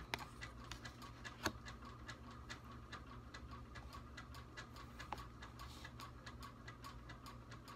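Faint, even ticking, several ticks a second, over a steady low hum, with one louder click about a second and a half in.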